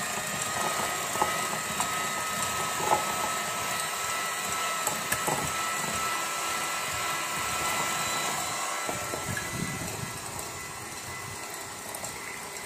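Electric hand mixer running steadily at a constant whine, its twin wire beaters whisking a liquid egg, sugar and oil batter in a glass bowl, with a few light ticks along the way. It gets a little quieter over the last few seconds.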